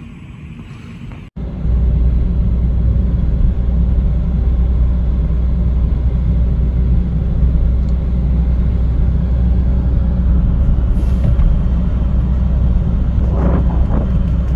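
A car driving: a steady, loud low road rumble that cuts in abruptly about a second in, replacing a quieter background.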